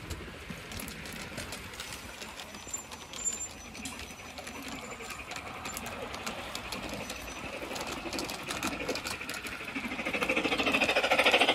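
Garden-railway model locomotive running along the outdoor track: a fast, even rattle of its motor, gears and wheels that grows louder as it comes close, loudest about ten seconds in.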